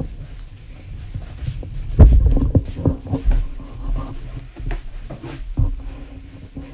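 Handling noise as a phone camera with a clip-on microphone is moved and set in place: irregular low bumps and knocks, the heaviest thump about two seconds in, then scattered lighter knocks.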